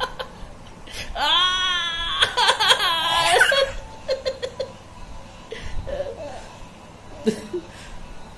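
A man's hearty belly laughter, loud and high-pitched for a couple of seconds about a second in, then breaking into short chuckles and fading.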